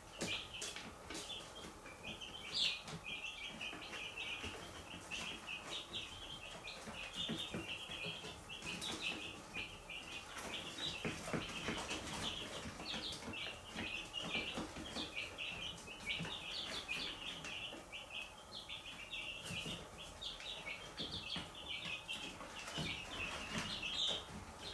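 A brood of young chicks peeping without pause, many short high calls overlapping, with scattered light clicks among them.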